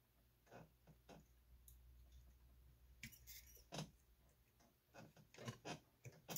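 Faint scattered clicks and taps of a metal pick prying at solder-softened transistor tabs on an RF amplifier circuit board, over a low steady hum.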